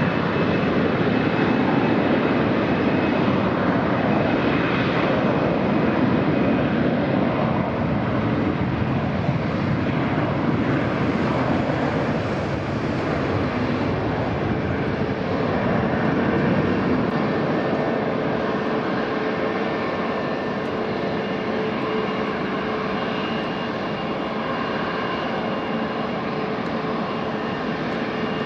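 Airbus A321 airliner's twin jet engines at takeoff thrust during the takeoff roll: loud steady engine noise with a faint steady whine, slowly easing as the aircraft rolls away, and still running as it rotates and lifts off near the end.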